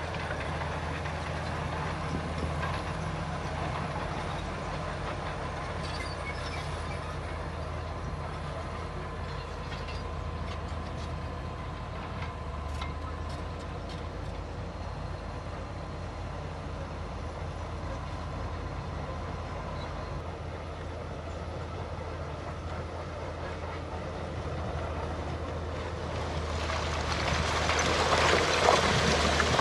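Heavy diesel earthmoving machinery running steadily with a low engine hum. A louder rushing, grinding noise swells near the end.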